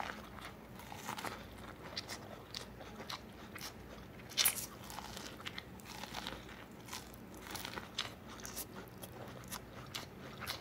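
Biting and chewing grilled corn on the cob close to the microphone: scattered small crunches and mouth clicks, with one louder bite about four and a half seconds in.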